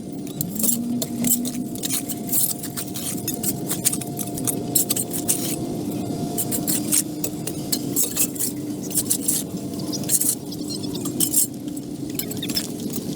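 Repeated sharp clinks and scrapes of hard objects over a steady motor hum.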